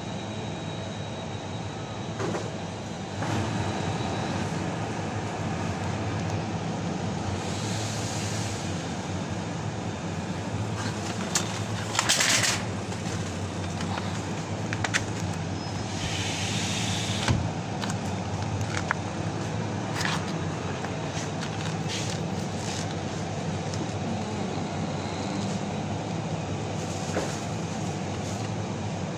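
Supermarket ambience: the steady low hum of refrigerated display cases, with short rustles and clicks of plastic meat trays being handled, loudest about twelve seconds in and again a few seconds later.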